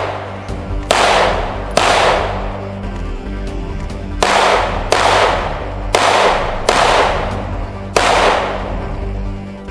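Gunshots fired one at a time, seven in all at an uneven pace, each with a long echoing decay.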